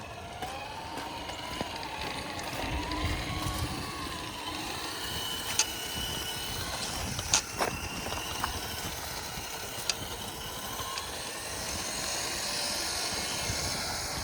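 Traxxas TRX-6 6x6 RC crawler driving over rough ground: its electric motor and gears whine, wavering up and down in pitch over the first few seconds, with a few sharp clicks and knocks a little past the middle.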